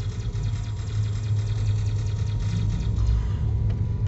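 Car running at road speed, heard from inside the cabin: a steady low engine hum with road noise over it.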